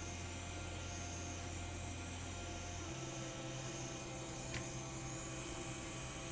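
Steady electric hum with a faint airy hiss from phone-repair bench equipment. The low tone steps up in pitch about halfway through, and there is one faint tick near the middle.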